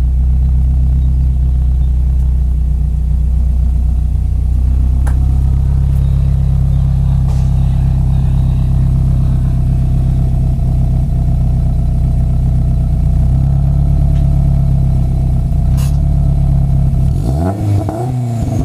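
Turbocharged Subaru flat-four with equal-length headers, a catless 3-inch downpipe and a Dynomax Ultra Flow muffler, idling steadily at the exhaust. It gives a quick rev that rises and falls near the end. A few faint ticks are heard, which the owner takes for the microphone vibrating against the trunk.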